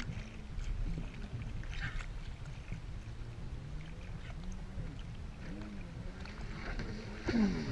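Personal watercraft (jet ski) engine running at a distance, its pitch wavering up and down as it rides the waves. Near the end it suddenly gets louder as it comes close, with a quick drop in pitch.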